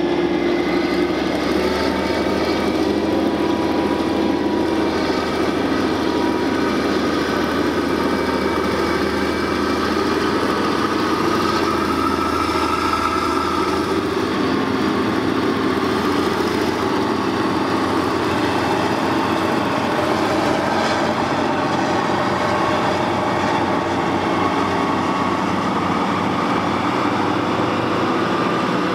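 Caterpillar 637 wheel tractor scrapers' twin diesel engines running steadily, the engine note drifting slowly up and down in pitch.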